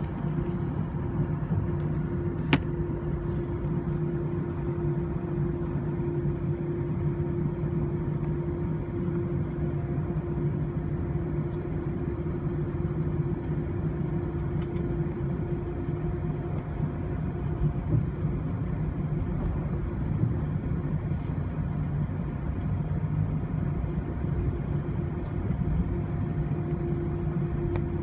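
Cabin drone of an Airbus A320-200's jet engines at steady taxi power, heard from a seat over the wing: a low rumble with a constant hum and whine that neither rises nor falls. A single sharp click sounds about two and a half seconds in.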